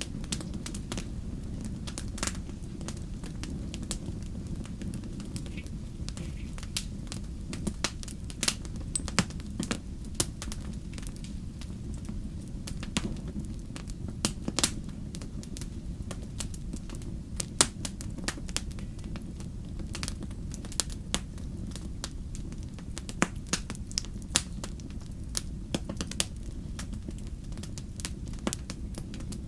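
Campfire burning, with a steady low rumble and frequent sharp, irregular crackles and pops of burning wood.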